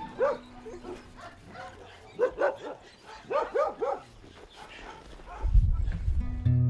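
A pack of mixed-breed dogs barking in short bursts: a single bark, then two quick runs of three or four barks about a second apart. A loud low rumble comes in near the end.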